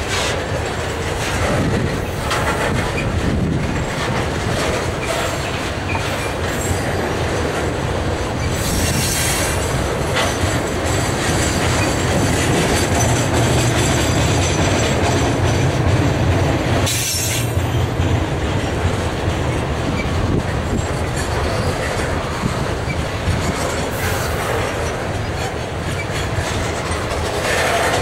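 Freight train of tank wagons rolling past close by: a steady rumble of steel wheels on the rails with rapid clicking and clacking over the rail joints, and a few brief high-pitched patches now and then.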